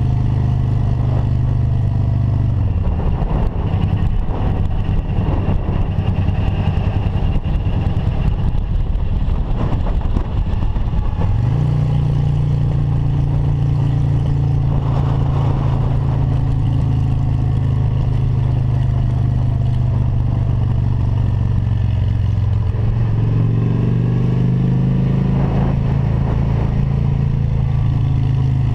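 Motorcycle engine running under way, with wind and road noise. Its steady note falls away about three seconds in and comes back strongly about eleven seconds in. It climbs again briefly near the end.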